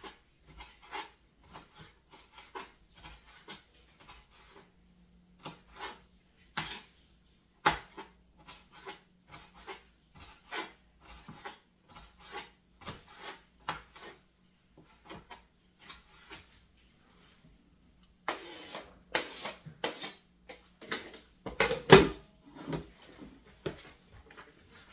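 Repeated short knocks and clinks of kitchen work, roughly two a second, then louder clattering and rustling near the end.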